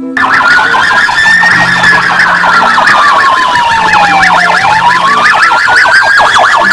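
Police siren sounds starting abruptly: a slow wail that rises and falls over several seconds, layered with a fast repeating yelp.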